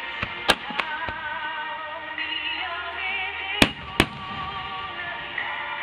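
Firework shells bursting in several sharp bangs, the loudest two coming close together near the middle. Under them, music plays steadily, with a wavering melody line.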